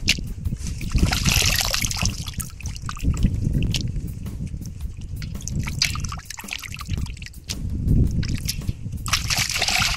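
Water sloshing and trickling.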